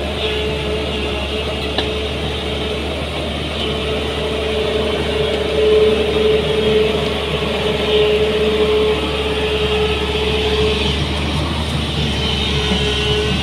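SANY SY210C-9 crawler excavator's diesel engine running steadily under load with a constant whine, getting a little louder about halfway through as the machine digs and lifts a bucket of soil.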